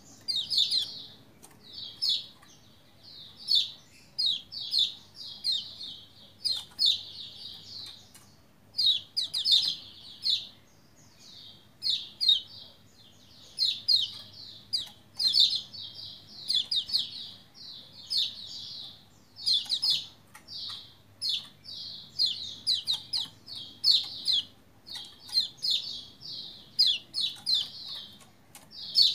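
Caged white-eye (pleci Lombok, the yellow 'kecial kuning') in full song: fast runs of high, sharp chirping notes in quick bursts, one after another with only brief gaps.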